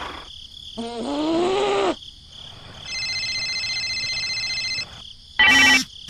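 Added electronic sound effects: a short sliding pitched call, then a steady high electronic tone for about two seconds. Near the end comes a loud, short, buzzing ring that repeats, a phone ringing.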